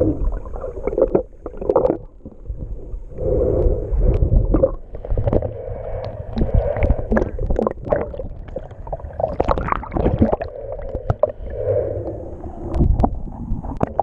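Muffled underwater water noise heard through a submerged action camera while snorkeling: sloshing and gurgling swells that come and go, with scattered sharp clicks.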